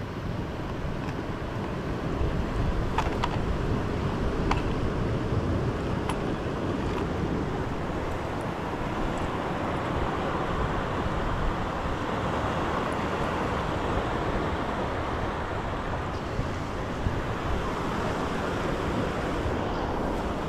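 Ocean surf washing steadily, with wind buffeting the microphone. A few faint ticks come a few seconds in.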